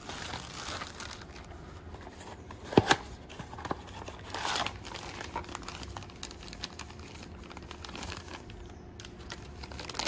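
Clear plastic parts bags crinkling as new camshaft sprockets are handled and pulled from their packaging, with one sharp knock a little under three seconds in.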